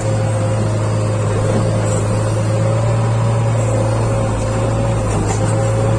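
JCB 3DX backhoe loader's ecoMAX diesel engine running steadily at working revs: a constant low drone with a steady higher whine that dips briefly about five seconds in.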